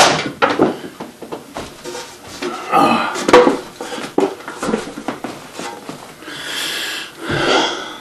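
Fibreglass shell chair being lifted and moved about, giving irregular knocks, bumps and scrapes, with a longer hissing scrape near the end.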